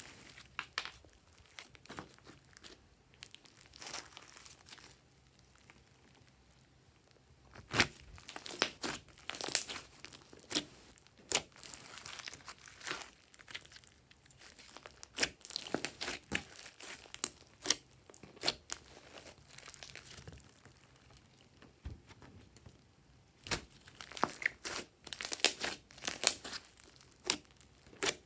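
Hands stretching, squeezing and poking glossy slime studded with small beads: irregular sticky crackles, clicks and pops, quieter for a couple of seconds about six seconds in.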